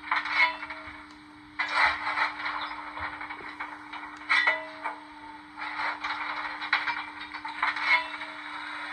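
Steam locomotive sounds for a Stanier 8F 2-8-0 played by a Zimo DCC sound decoder through a small speaker in an OO-gauge model's tender. A steady hiss with a louder, clattery burst every second or two, over a steady low hum.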